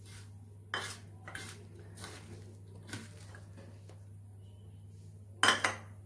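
Light knocks and clinks of a small bowl tapped against a stainless-steel mixing bowl to shake gram flour out, four light ones in the first three seconds and a louder clatter about five and a half seconds in.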